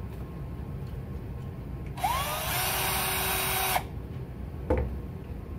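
Cordless drill running for a little under two seconds, drilling out a hole in a cast resin blaster part so that a thumb screw will fit. Its whine rises as it spins up, holds steady, and cuts off when the trigger is released, followed by a single knock.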